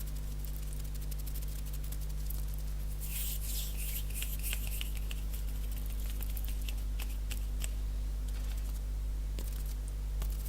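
Fast dry hand sounds: skin rubbing and quick finger taps in short crisp bursts, getting busier about three seconds in, over a steady low hum.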